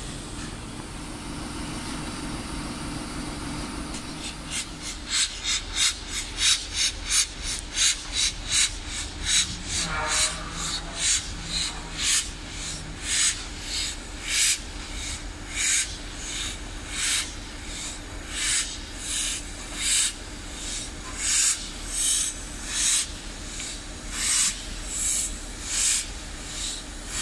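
Four-cylinder LMS Princess Coronation Pacific No. 6233 Duchess of Sutherland working a train under steam. After a few seconds of steady noise, its sharp exhaust beats begin about four seconds in, quick at first and then more widely spaced, over a constant hiss of steam.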